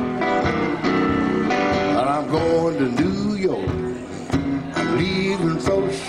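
Stratocaster-style electric guitar played through an amplifier, picking blues lines with string bends about two to three seconds in.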